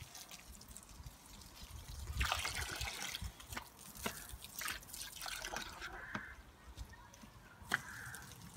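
Water spraying from a garden hose nozzle and splashing and trickling onto grass, louder for about a second a couple of seconds in, with scattered soft clicks and a few short high-pitched blips.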